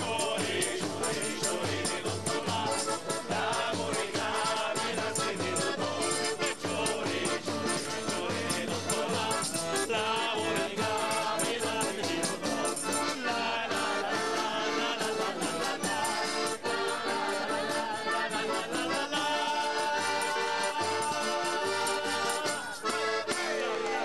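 Street folk band playing a lively traditional Sicilian song on accordion, tambourines and acoustic guitar, with the tambourines jingling on a steady beat and voices singing along.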